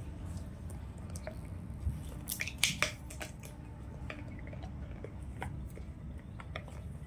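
Small dog chewing and nibbling at something on a rug: scattered soft clicks, with a short cluster of sharper, louder clicks about two and a half seconds in.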